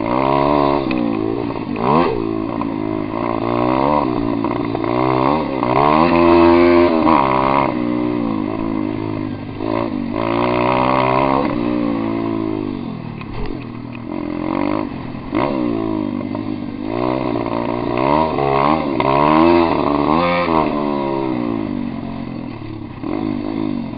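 Pit bike engine revving up and falling back over and over as the rider works the throttle and gears, its pitch rising and falling repeatedly and loudest about six seconds in.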